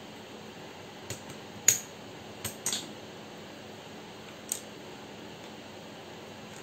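A few sharp plastic clicks from mechanical keyboard keycaps being handled and pressed: five separate clacks, the loudest about two seconds in and the last about four and a half seconds in.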